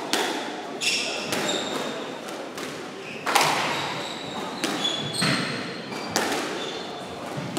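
Doubles squash rally: the ball cracking off racquets and the court walls about once a second, echoing in the court, the loudest hit about three seconds in. Short high squeaks from shoes on the wooden floor come between the hits.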